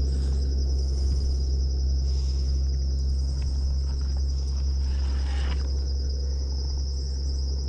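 A steady high-pitched chorus of insects trilling, like crickets, over a constant low hum. There is a brief rustle about five seconds in.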